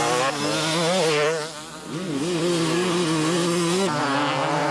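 Two-stroke 250cc motocross bike engine being ridden hard, its buzzing note rising and falling with the throttle. Briefly off the throttle about one and a half seconds in, then back on.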